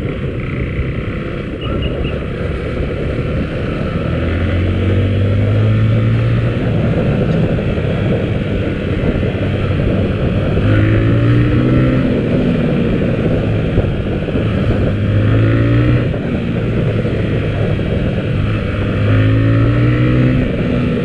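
Motorcycle engine under way, its pitch climbing and dropping back about four times as it pulls through the gears, over steady wind and road noise.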